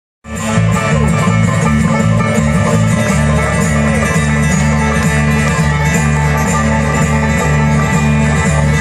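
Bluegrass string band playing an instrumental passage, with banjo and guitar over a steady walking bass line; the music cuts in abruptly just after the start.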